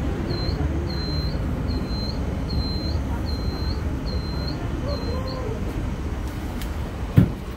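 Steady low rumble inside a Roosevelt Island Tramway aerial cable car cabin in motion. A high-pitched beep repeats about every 0.7 seconds, seven times, over the first five seconds, and a single sharp thump comes near the end.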